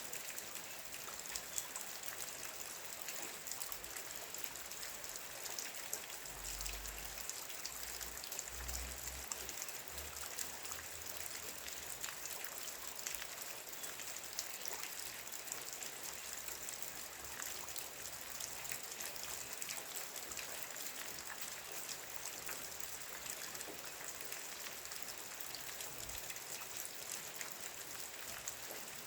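Steady rain falling, with the dense patter of individual drops and a few brief low rumbles between about 6 and 10 seconds in.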